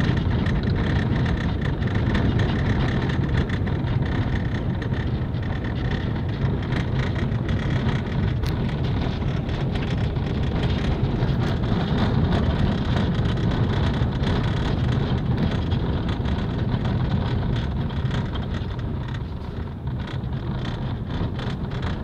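Car driving along a dirt road, heard from inside the cabin: a steady low engine and tyre noise with many small clicks and rattles from the rough surface.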